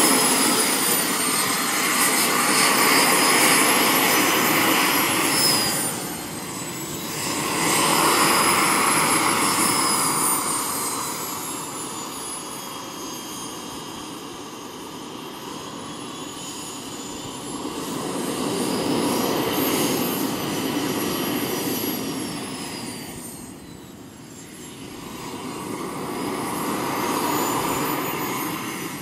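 Kingcat RC model jet's turbine running while the model taxis, a high whine that glides up and down in pitch and swells and fades several times.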